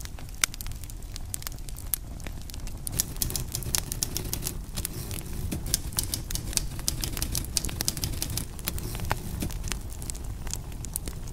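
Small wood fire crackling, with irregular sharp pops over a low, steady rumble of burning.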